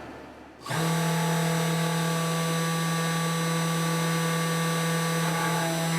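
A desktop CNC router's motors start suddenly under a second in and run with a steady pitched hum, a few of its tones shifting near the end.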